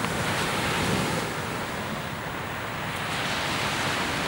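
Ocean surf washing onto the beach, a steady rush that swells in the first second, eases, then builds again near the end, with wind buffeting the microphone underneath.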